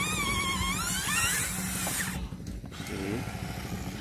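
Small electric gear motors of a toy RC excavator whirring steadily as it slews and raises its boom to load a dump truck. A wavering high-pitched tone runs over it for the first second and a half.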